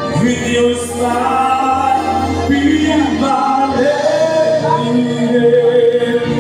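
A male singer sings through a microphone over backing music, holding long sustained notes.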